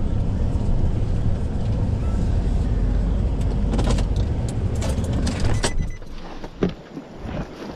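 Pickup truck running, heard from inside the cab: a steady low rumble that drops away about six seconds in, followed by a few short clicks and knocks.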